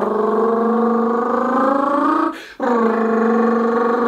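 A man imitating a V8 engine with his mouth: a buzzy, rattling drone that climbs slowly in pitch, cuts out briefly about two and a half seconds in, then starts again a little higher and settles into a steady note.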